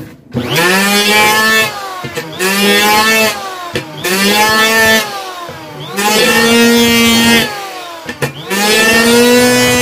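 LOTUS 580-watt electric hand planer cutting a hardwood beam in five short passes about two seconds apart. On each pass the motor's pitch sags as the blades bite into the wood and climbs back as the cut ends.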